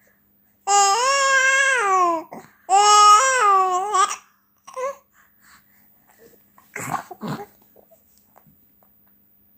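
A 4-month-old baby vocalizing: two long, loud, drawn-out voiced wails about a second apart, then a short squeak and a couple of breathy noises around the middle before it goes quiet.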